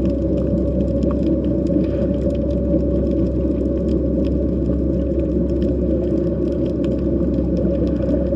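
Underwater sound heard through a hydrophone: a steady, dense low rumble over a constant low hum, with scattered faint clicks on top.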